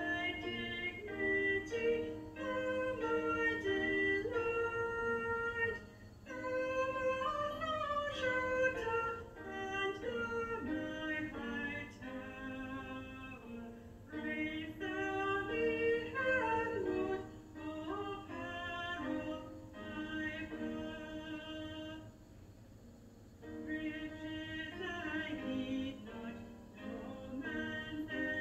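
A hymn sung in several parts in harmony, with notes held between changes, and a brief break about three-quarters of the way through.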